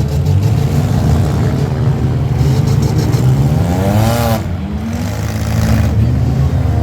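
Minivan engines running hard in a demolition derby. About three seconds in, one engine revs up, its pitch climbing for about a second and a half before it drops off sharply.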